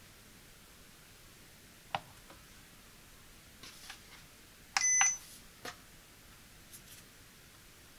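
ACCUTECK digital postal scale: a single light tap about two seconds in as an item is set on its platform, then a short electronic beep from the scale about five seconds in, with a click at its start and end, followed by a light tap of handling.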